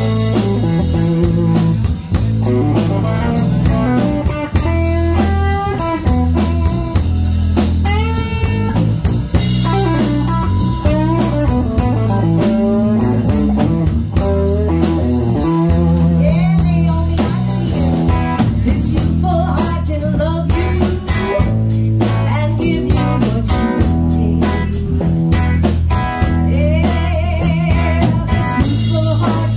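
A live rock band playing: electric guitar with bent, wavering notes over electric bass and drum kit.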